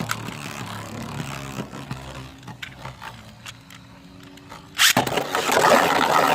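Beyblade spinning tops launched into a plastic stadium about five seconds in, then spinning and colliding with a loud, dense scraping and rattling. Before the launch there is a lower hum of several steady tones with a few light ticks.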